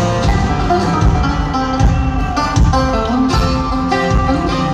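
Live country music played over an arena's sound system: acoustic guitar and other plucked strings over a steady beat.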